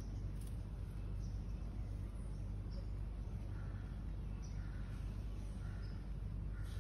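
Steady low outdoor background noise, with a few faint, short bird chirps scattered through it.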